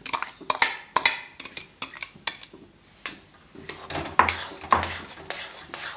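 Metal clinking as sugar is knocked out of a bowl into a kadai, then a steel spatula scraping and clicking against the pan as the sugar is stirred into hot mango pulp for halwa.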